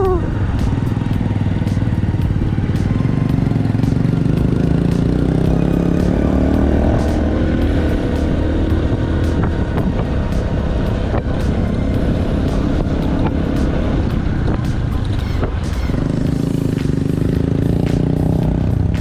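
Motorcycle engine running under way, its pitch rising and falling as it speeds up and slows down, with wind and road noise.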